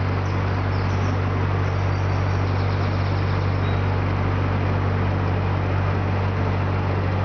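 Narrowboat's diesel engine running steadily under way, a constant low hum with no change in speed.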